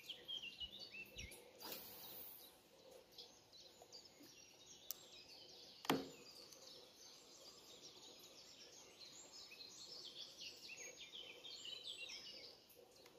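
Faint birdsong, short high chirps repeating through most of the stretch, with a single sharp knock about six seconds in.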